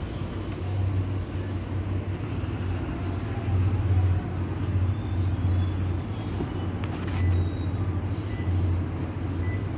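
Steady low rumble of outdoor background noise that swells and fades every second or so, with a few faint high chirps and a brief click about seven seconds in.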